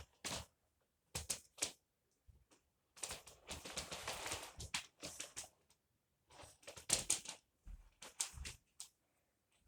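Hard plastic clicks and rattling as parts are handled and fitted together, with a longer scraping rattle a few seconds in and another near the end.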